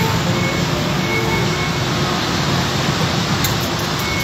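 Steady city street traffic noise, an even rumble with a few faint steady tones. Near the end, a run of quick, faint, high ticks begins.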